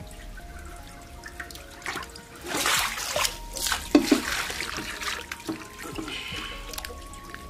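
Water splashing and sloshing as hands rub and squeeze soft pieces of food in a basin of cloudy water, busiest in the middle, over soft background music.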